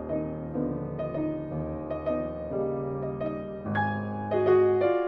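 Background instrumental music led by piano, with notes changing about every half second.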